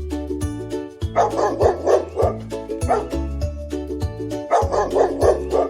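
A dog barking loudly in two quick runs of several barks each, over light background music.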